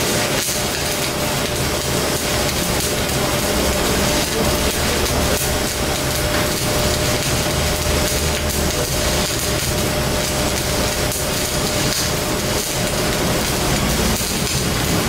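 Electric arc welding crackling steadily, with a faint steady hum underneath.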